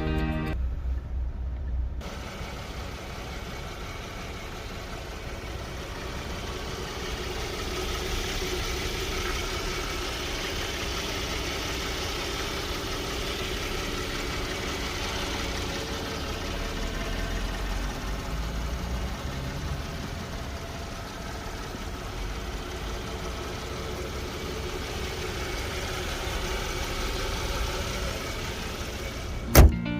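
A 2013 Hyundai Genesis BH sedan's engine running steadily, with a sharp click near the end.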